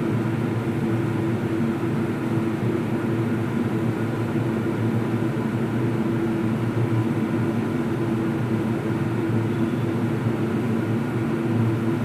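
A steady, low mechanical drone with a constant hum that does not change.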